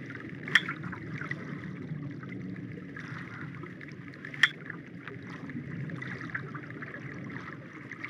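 Sperm whales heard through a directional hydrophone: a steady underwater hiss full of faint, rapid echolocation clicks from foraging females, cut by two loud single clicks about four seconds apart, the male's slow 'bing' call, which the researcher takes for a mating call.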